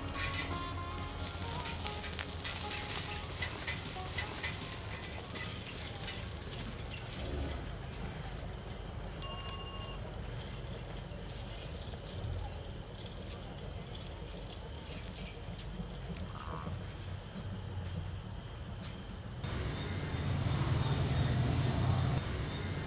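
Night-time chorus of crickets and other insects, a steady high trill. About three-quarters of the way through it cuts off, and the low steady hum of rice flour mill machinery takes over.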